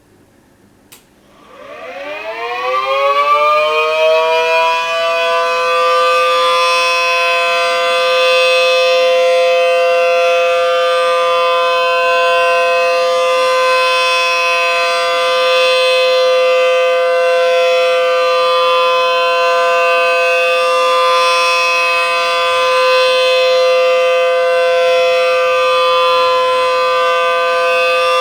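Homemade 3D-printed mini ACA P10 tornado siren with a 12/9-port chopper. A click about a second in, then it winds up in a rising chord over a few seconds and settles into a loud, steady two-tone wail that it holds.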